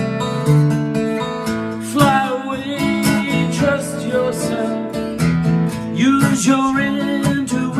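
Acoustic guitar strummed steadily in an original song. About two seconds in, a second melody line that bends and glides joins over the chords.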